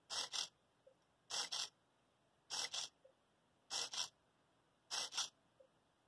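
Small blue hobby micro servo whirring in short double bursts about every 1.2 seconds, five times, as the Arduino drives it back and forth to move the model Stirling engine's displacer rod.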